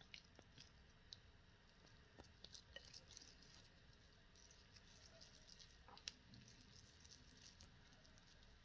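Near silence, with faint scattered taps and soft squishes of hands shaping potato dough around a bolognese filling; one click stands out a little about six seconds in.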